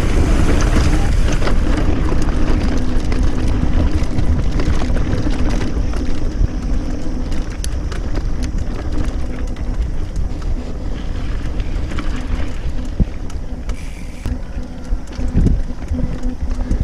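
Wind buffeting the microphone and a mountain bike's tyres rumbling over the trail while riding, with a steady low hum and scattered clicks and knocks.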